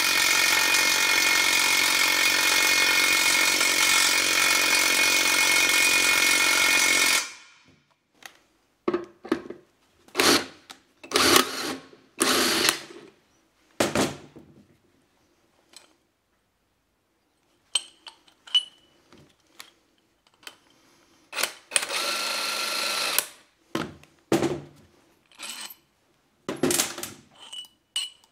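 A power wrench runs steadily for about seven seconds, driving a puller in a bearing bore of a Toyota E154F gearbox casing, then stops suddenly. After that, steel puller parts and tools knock and clink against the casing, with a second short run of the wrench about three quarters of the way through.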